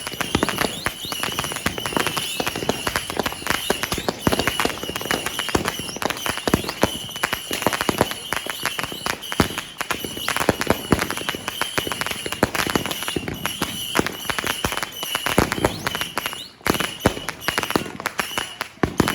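Fireworks and firecrackers going off in a dense, unbroken barrage of sharp cracks and pops, many a second, with a steady high tone running underneath.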